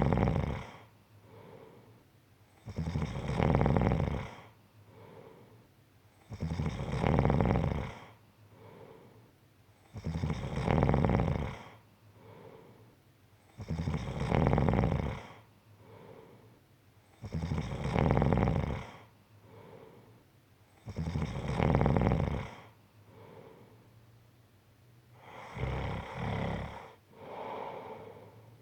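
A person snoring in long, regular snores about every three and a half seconds, with a softer breath between each. Near the end the snores turn weaker and broken.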